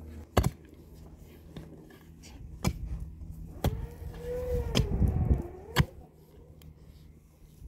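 Five sharp knocks, spaced irregularly, like blows or objects striking something hard, with a wavering tone rising and falling through the middle.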